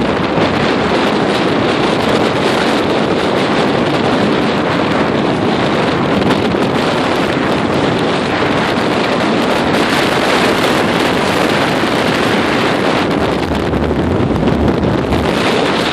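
Very strong wind buffeting the microphone: a loud, dense, unbroken rush that swells slightly about two-thirds of the way through. Lake waves surge against the pier beneath it.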